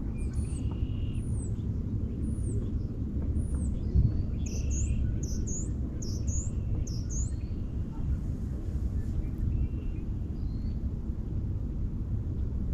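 Thin lake ice singing: a steady low rumble, a sharp crack about four seconds in, and repeated quick, high swooping chirps.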